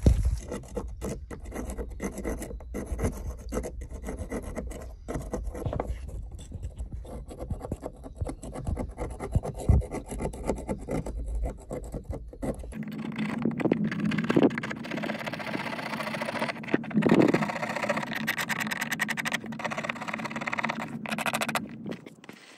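A rusty iron skeleton key being scraped with a knife blade against a wooden board, in repeated scratchy strokes. About thirteen seconds in, the sound changes to brisk scrubbing of the key with a small stiff brush.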